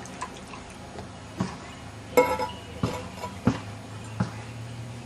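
Glass bottles knocking and clinking: about five sharp hits, the loudest a ringing clink about two seconds in.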